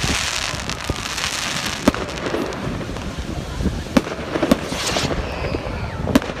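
Fireworks going off: several sharp bangs spread through, the loudest about two and four seconds in, over a continuous hissing rush.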